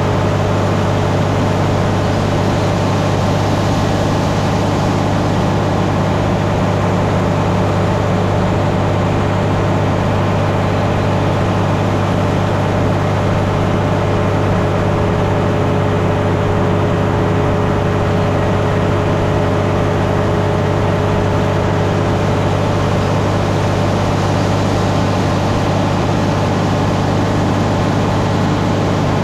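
Grain-handling machinery running steadily while a grain truck unloads: a constant low drone with a steady hum over it, unchanging throughout.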